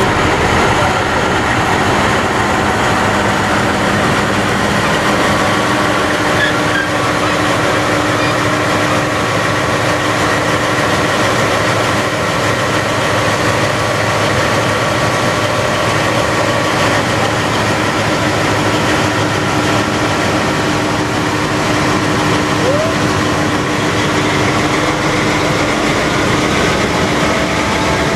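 Diesel locomotive engine running steadily, a constant drone with a few held tones.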